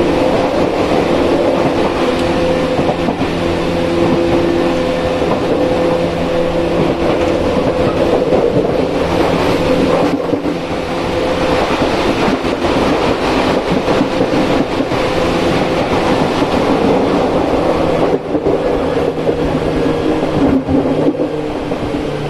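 Tokyu 8500 series electric train running, heard over the gangway between cars: wheel and rail noise with steady tones from its Hitachi-built field-chopper traction equipment, the low-pitched type. One tone drops away about five seconds in, and lower tones return near the end.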